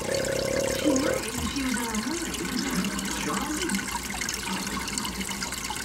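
Steady rush of running water in a turtle aquarium.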